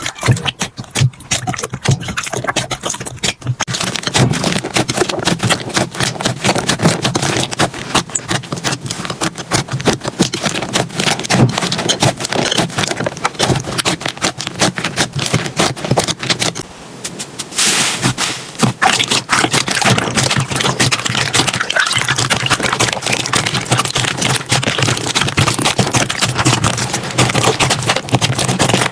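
Slime being squeezed and pressed by hand, giving dense, rapid crackling and popping clicks that run on with hardly a pause.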